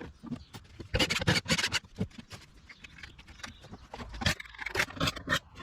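Irregular series of sharp knocks and scrapes, bunched about a second in and again near the end.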